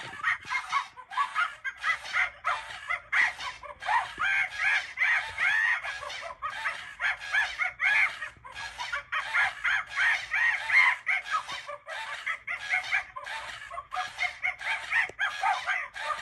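Gemmy Swinging Monkey animated plush playing its recorded monkey chattering and screeching through a small tinny speaker, as rapid, continuous bursts of calls that glide up and down in pitch.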